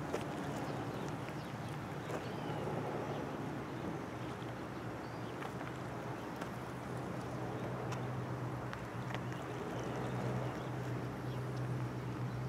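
A steady low hum over an even outdoor background hiss, with a few faint scattered ticks.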